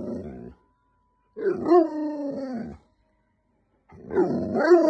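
German Shepherd vocalizing in long, wavering calls that bend up and down in pitch: the end of one call at the start, then two drawn-out calls of about a second and a half each, one about a second and a half in and one near the end.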